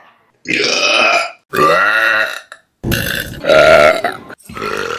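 Four loud human burps in quick succession, each about a second long with brief silences between them; the third opens with a rough low rumble before swelling.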